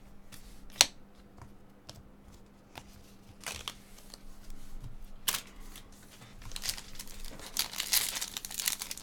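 Foil trading-card pack wrapper crinkling and tearing as it is opened, building from about two-thirds of the way through. Before that there is a sharp tap about a second in and a few light rustles of cards being handled.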